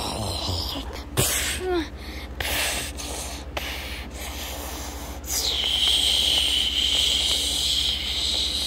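Breathy, snorting noises made by mouth in short bursts with a brief squeak, then one long steady hiss over the last three seconds.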